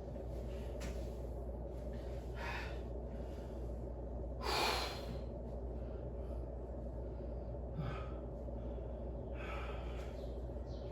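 A man breathing hard, recovering from a set of kettlebell exercises: several heavy breaths, the loudest a sharp gasp about four and a half seconds in, over a steady low hum.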